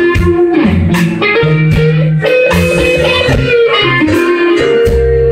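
Live blues band playing an instrumental passage: an electric lead guitar bends notes over electric bass and a steady beat.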